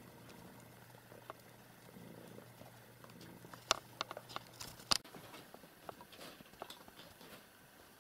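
Faint scuffling and licking of a mother cat grooming her kitten, with a few sharp clicks, the loudest just before four and five seconds in. A faint low hum stops about five seconds in.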